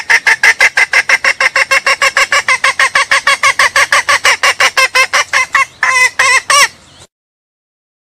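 Junglefowl hen giving a fast, evenly pulsed call of short notes, about seven a second. It breaks off briefly near the end for a last short run of notes, then stops. This is the call of a hen in heat calling a rooster to mate.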